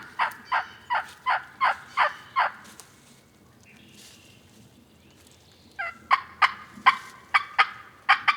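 Wild turkey yelping: two runs of evenly spaced yelps, about three a second, each note breaking from high to low. The first run stops about two and a half seconds in, and a louder run starts near six seconds.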